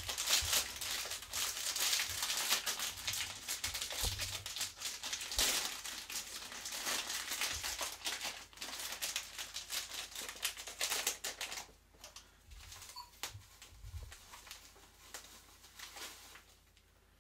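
Plastic packet of light brown soft sugar being handled and torn open, a dense, irregular crinkling and crackling. It stops about twelve seconds in, leaving only a few faint ticks as the sugar is tipped into a metal measuring cup.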